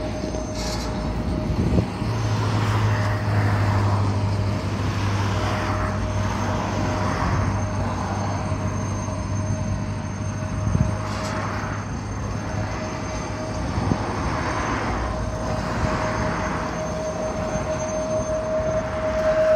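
Electric tram running: a steady whine held throughout, a low hum over the first half, and a few knocks.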